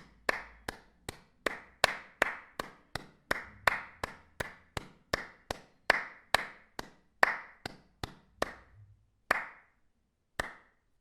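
Hand claps, struck one at a time at about two to three a second, each a sharp crack with a brief ring; near the end they space out to single claps about a second apart.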